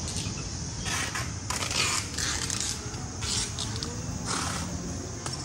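Wind on the microphone and road noise from riding in an open vehicle: a steady hiss and rumble that swells in irregular gusts.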